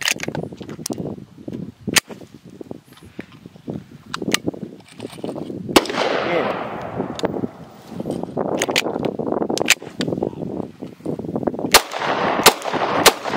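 Glock 30 .45 pistol firing several sharp shots, three in quick succession near the end, with clicks of the slide being worked between them. It is clearing jams after being frozen in ice.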